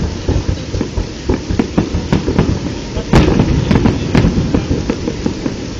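Aerial firework shells bursting in a rapid, irregular string of bangs, the loudest about three seconds in.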